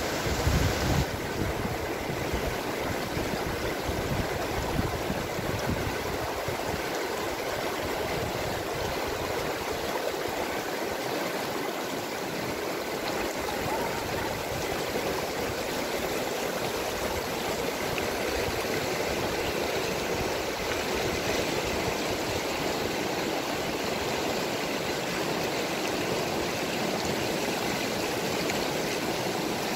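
Fast, shallow mountain river rushing over rocks: a steady, unbroken sound of whitewater rapids.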